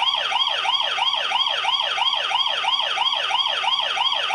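Wireless doorbell chime unit playing its police-siren ringtone: an electronic siren yelp sweeping up and down in pitch about four times a second.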